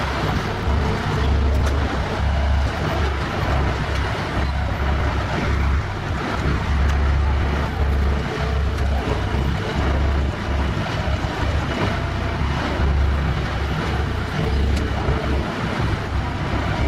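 Heavy piling-rig machinery running steadily with a deep rumble that swells and eases every second or so, with no hammer blows.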